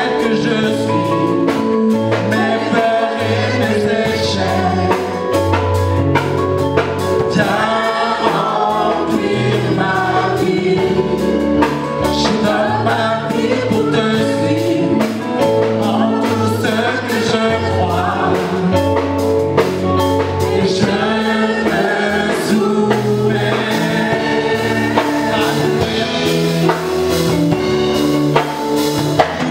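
Gospel worship song: a small mixed vocal group singing in harmony over instrumental accompaniment with held chords, a bass line and a steady beat.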